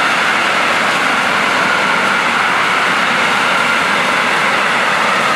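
A freight train of tank wagons rolling past close by, with the loud, steady noise of steel wheels running on the rails.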